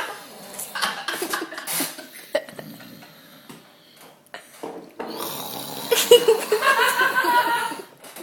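People laughing in bursts, mixed with throaty, snore-like snorts from a mock snoring impression. A longer bout of laughter comes near the end.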